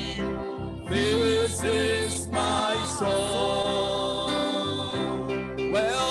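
A man singing a gospel hymn over sustained instrumental chords, with long held notes that bend at their ends.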